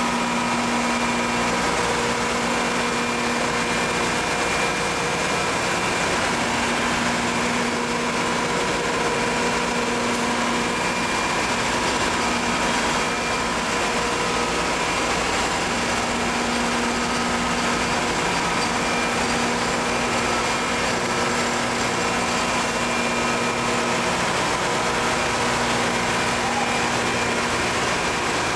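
TDP-600 dry ice production machine running steadily. Even machinery noise with a steady higher tone, and a low hum that cuts out and comes back every few seconds.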